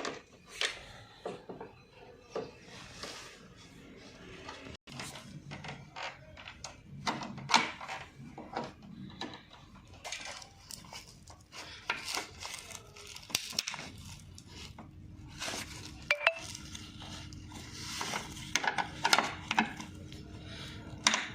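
Irregular clicks, knocks and rattles of plastic and metal parts as an indoor AC unit is taken apart to free its cooling coil. A faint steady low hum comes in about two-thirds of the way through.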